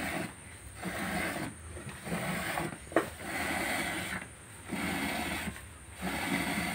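Hand milking: milk squirting from a cow's teat into a frothy plastic bucket in a steady rhythm, a foamy hiss about once a second, with one sharp click about three seconds in.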